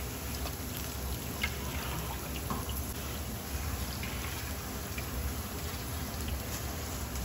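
Battered pork pieces deep-frying in a wok of hot oil: a steady sizzle with a few faint scattered pops.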